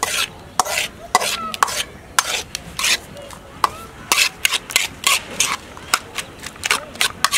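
A metal spatula scraping and stirring raw eggs, sliced onion, green chilies and herbs around a large aluminium pan, in quick, irregular strokes.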